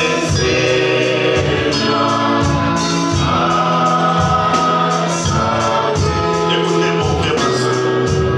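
Gospel worship song: a man sings a slow melody over held electronic keyboard chords and a steady bass line.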